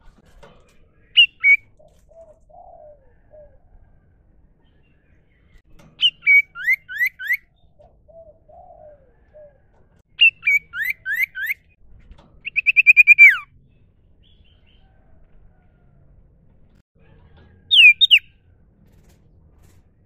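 Common iora (sirtu, cipoh) calling: loud, clear whistled phrases of quick falling notes in short groups, one of them a fast trill about halfway through. A dove coos faintly in the background twice.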